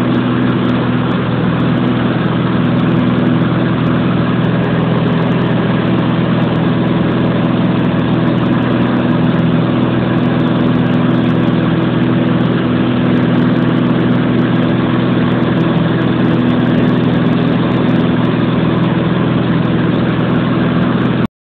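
Small propeller plane's engine and propeller droning steadily in cruise flight, heard from inside the cabin.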